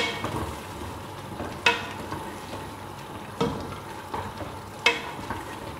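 Cooking on a gas stove: a steady sizzle, with four sharp taps about a second and a half apart.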